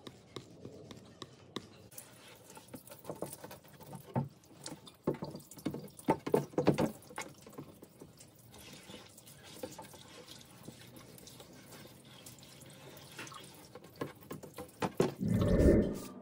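Water from a hose running and dripping onto a wooden mokulito plate, with irregular drips and splashes. A louder low thump comes near the end.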